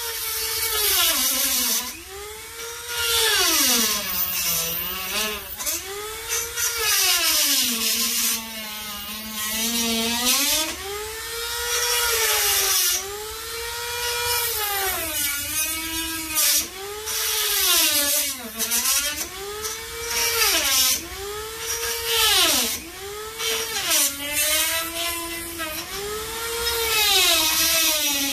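Small handheld power tool with a thin bit working at the Corvette's door edge, its motor whining and speeding up and slowing down over and over, roughly every two seconds.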